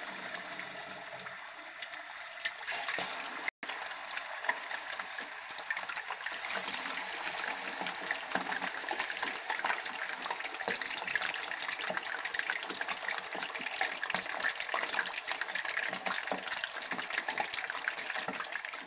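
Chicken leg pieces deep-frying in hot oil: a steady sizzle with dense crackling, with a brief break about three and a half seconds in.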